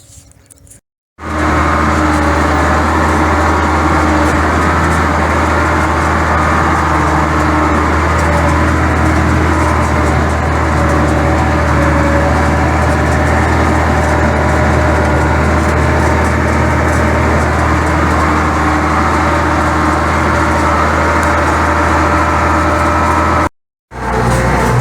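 Heavy machine engine running steadily at constant speed with a deep, even hum. It cuts in abruptly about a second in and cuts off just before the end.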